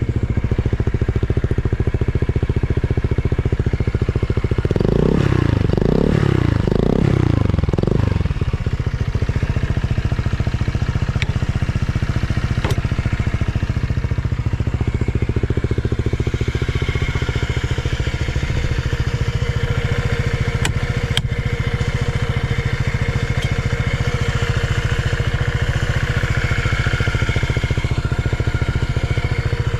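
Honda PCX125 scooter's fuel-injected 125 cc single-cylinder engine idling through an aftermarket carbon/stainless full exhaust, revved up and let fall back a few times about five to eight seconds in, then idling steadily again. It revs up cleanly with no abnormal noise.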